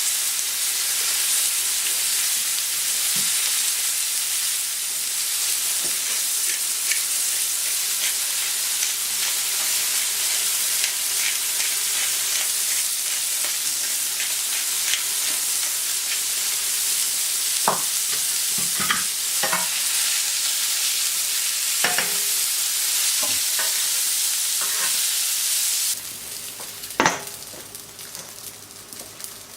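Food frying on an oiled plancha griddle: a steady sizzle, with a few sharp knocks of utensils against the metal in the last third. The sizzle drops suddenly quieter a few seconds before the end.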